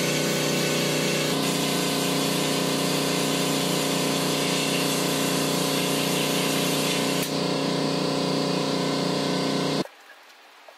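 Cyclone E100 LTC bench-top blast cabinet's bead-blasting gun spraying media in a steady, loud hiss with a steady hum beneath, cutting off abruptly near the end. The gun is giving a consistent spray now that its pickup hose is held partly out of the media so it can draw in air, instead of sucking up only media and clogging.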